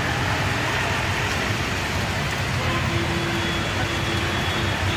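Heavy monsoon rain falling steadily on a flooded street, mixed with motor traffic (cars and auto-rickshaws) driving through the standing water.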